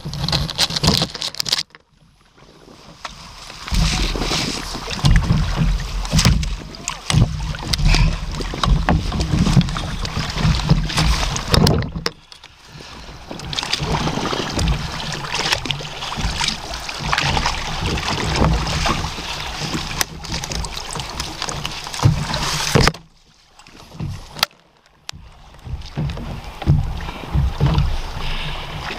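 Water splashing and sloshing against a kayak on a choppy sea, with wind rumbling on the microphone. It drops away briefly three times, near the start, about halfway through, and near the end.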